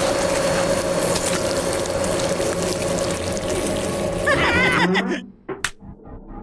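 Cartoon sound effect of a large meat grinder running: a steady mechanical hum under wet, squelching noise as meat is forced out. It cuts off about five seconds in and is followed by a single sharp smack.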